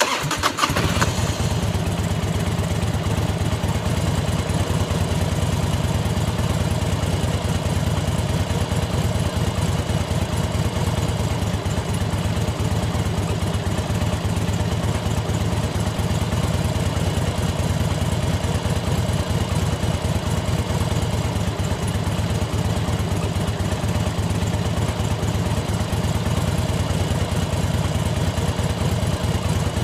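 Motorcycle engine idling steadily with a fast, even beat.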